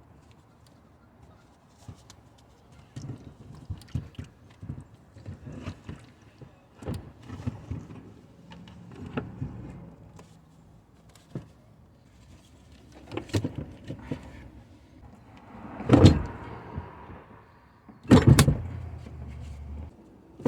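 Scattered knocks, clicks and rattles of hands handling parts and stiff cables in a car's battery compartment, with loud thumps about sixteen and eighteen seconds in and another at the end.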